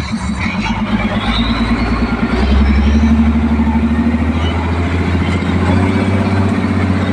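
Terminal tractor's diesel engine running under way, heard from inside the cab; the engine gets louder and deeper about two and a half seconds in as it pulls harder, with a faint rising whine early on.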